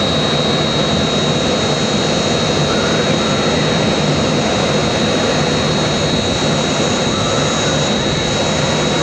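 A bus burning in a large fire: a loud, steady rushing noise of the flames that does not let up.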